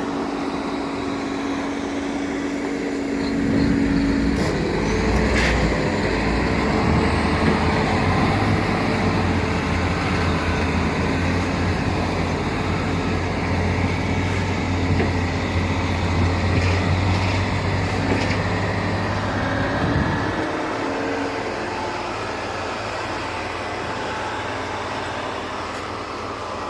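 Diesel engine of heavy earthmoving equipment running. It grows louder about three seconds in, holds a deep steady drone, and falls away about twenty seconds in, leaving a lower background hum.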